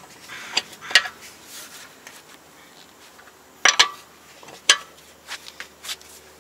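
Several sharp metal clinks, spaced unevenly, of a wheel wrench on the wheel bolts as the wheel is tightened after the car is lowered off the jack.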